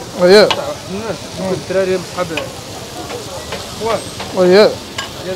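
Burger meat sizzling on a hot griddle, a steady hiss throughout, with a voice calling out loudly twice, shortly after the start and again near the end.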